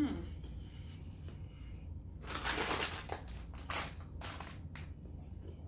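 Rustling and crinkling handling noise in a few short bursts, the longest lasting under a second about two seconds in.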